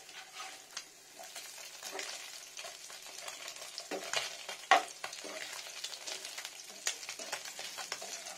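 Small whole fish frying in oil in a nonstick pan on a low flame, sizzling steadily while a spatula turns them, scraping and clicking against the pan. A sharp knock, likely the spatula striking the pan, comes about halfway through and is the loudest sound.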